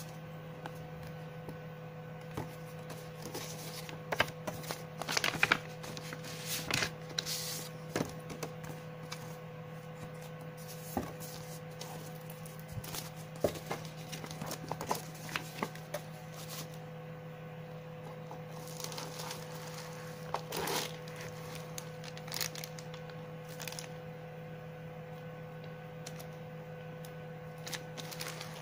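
Paper inserts and a cardboard box being handled: scattered rustles, crinkles and light taps, busiest about four to eight seconds in and again around twenty seconds, over a steady low hum.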